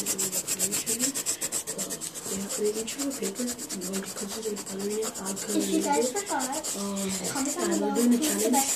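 Quick back-and-forth scribbling of a colouring pencil on paper, a steady run of about eight rasping strokes a second.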